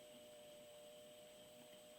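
Near silence: faint steady hiss with a few thin, steady background tones.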